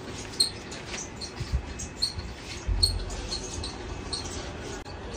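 Short high-pitched squeaks repeating irregularly, about one or two a second, over faint steady background noise, with a low thump about three seconds in.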